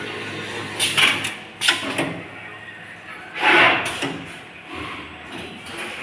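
Automatic ferrule marking and lug crimping machine running: irregular mechanical clacks and sharp clicks with short hissing bursts, the biggest burst about three and a half seconds in.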